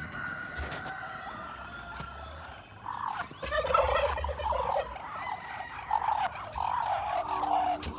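Domestic turkey gobbling: a rapid, warbling rattle that starts about three seconds in and keeps going for several seconds. A long, steady high call comes before it.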